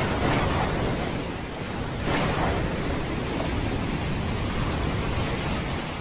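Storm sound effect: a steady rushing noise, swelling about two seconds in.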